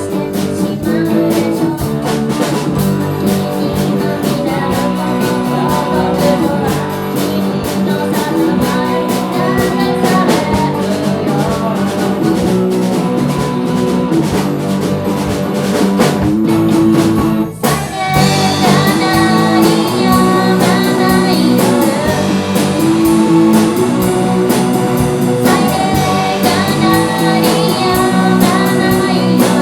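A live band playing a song, guitar over a drum kit, loud and steady. The band cuts out for an instant a little past halfway, then comes straight back in.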